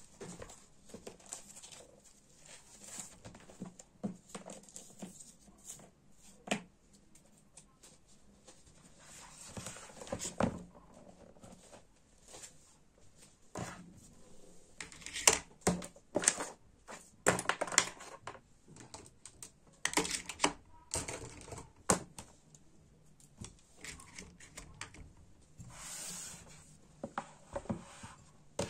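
Desk items being handled: paper pages riffling and rustling, with pens, a ruler and a glass cup picked up and set down on the desk top in a string of small knocks and taps.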